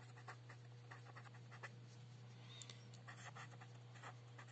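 Felt-tip pen writing on paper: faint, quick scratchy strokes as letters are written, over a steady low hum.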